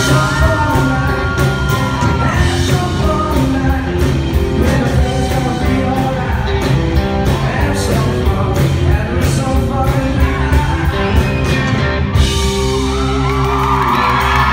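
Live rock band playing in a hall: electric guitar and electric bass with a sung lead vocal over a steady beat. The beat stops about twelve seconds in.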